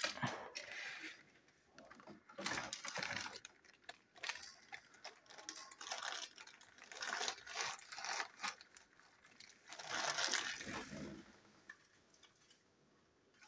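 A clear plastic bag crinkling and rustling as it is handled, with small clicks and knocks of plastic toy parts, in uneven patches that die away in the last couple of seconds.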